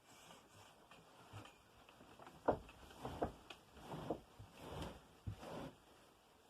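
Faint scattered knocks and short rustles.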